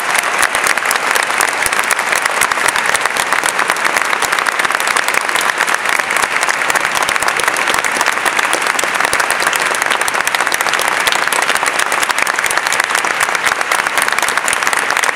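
Audience applauding, a dense, steady ovation of many hands clapping.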